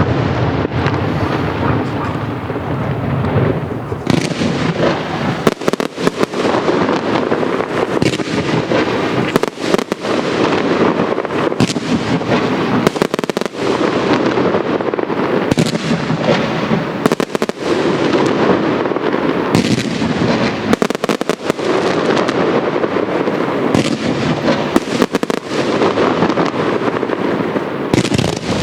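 Castillo aerial fireworks display: a dense, unbroken barrage of shell bursts and crackle, with many sharper, louder bangs standing out all through it.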